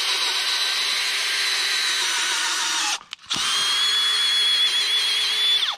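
Makita XFD14 cordless drill spinning a 1-1/8-inch auger bit in a hole in a dead tree trunk, backing it out to clear the hole. It runs steadily, stops briefly a little after halfway, then runs again with a high whine and cuts off suddenly.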